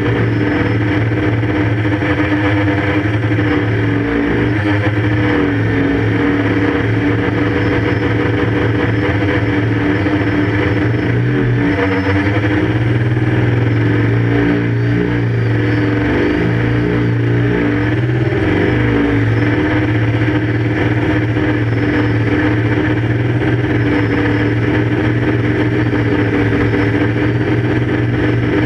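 QAV500 quadcopter's electric motors and propellers humming loudly and steadily, heard close up from the camera mounted on it. The pitch dips and wavers now and then.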